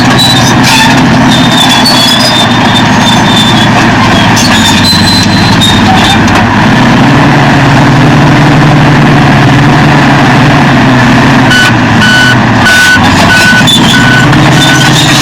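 Caterpillar D9 bulldozer's diesel engine running loud and steady, its pitch shifting about six seconds in. From near the end a reversing alarm beeps in a steady series, as the machine backs up.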